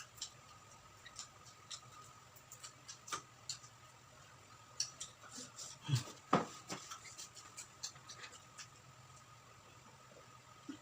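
Close-up chewing and crunching of crispy deep-fried quail: many short, irregular crackles and clicks, with two louder crunches about six seconds in.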